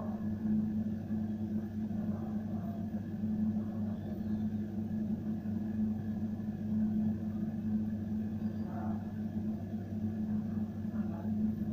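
Steady low hum of an incubator's fan motor, running evenly with no change.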